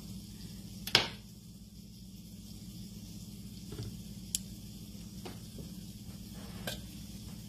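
Salt cod fritter batter frying in shallow oil in a griddle pan with a faint sizzle over a steady low hum. A metal spoon clicks sharply against the pan about a second in, with a few lighter taps later as more batter is spooned in and pressed flat.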